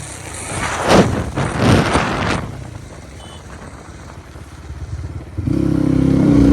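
Road vehicle sounds: rushes of noise about one and two seconds in, then a steady droning note from a vehicle starting about five and a half seconds in.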